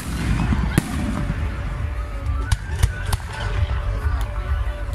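Aerial fireworks shells bursting in the sky: several sharp bangs, the loudest about a second in, over a steady low rumble.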